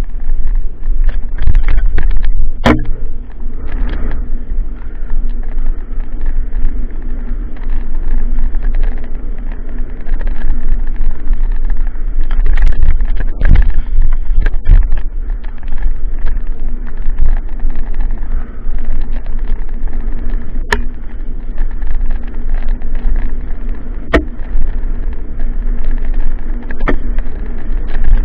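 Mountain bike rattling fast down a dirt trail, with heavy wind rush on the camera microphone and tyre rumble. Several sharp knocks are heard as the bike hits bumps.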